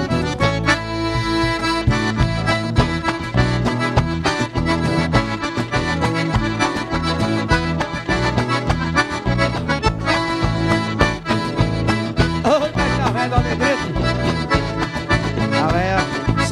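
Accordion (sanfona) playing an instrumental break in a sertanejo song over a steady bass and rhythm accompaniment.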